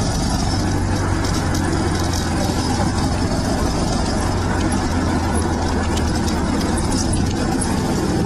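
Rental go-kart's small engine running steadily at low, even revs, heard from on board the kart.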